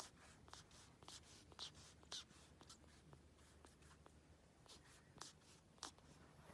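Near silence with faint scattered clicks and a few short soft rustles as a pug puppy shifts and nuzzles against a plush toy on carpet.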